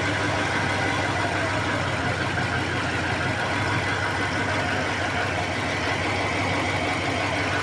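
Dodge engine idling steadily with a misfire and an abnormal noise that comes from one side of the engine.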